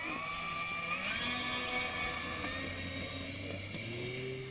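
Brushless electric motor (Turnigy SK3 5055-430KV) of an RC Spitfire, driving a three-blade 15x8 propeller. Its whine steps up in pitch at the start and again about a second in, then holds steady.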